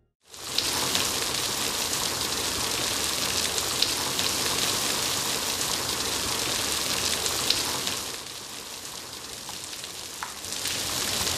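Steady rain: a dense, even hiss with scattered louder drop hits. It starts abruptly, eases for a couple of seconds about eight seconds in, then picks up again.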